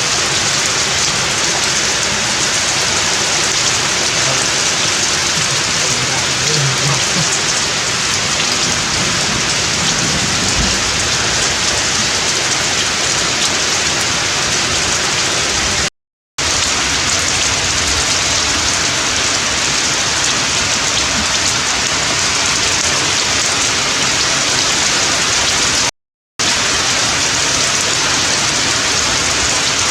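Steady heavy rain falling, an even hiss that holds at one level and cuts out for a split second twice.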